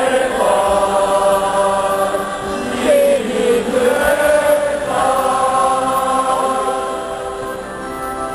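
Large crowd of football supporters singing a slow chant together with their scarves held up, in long held notes.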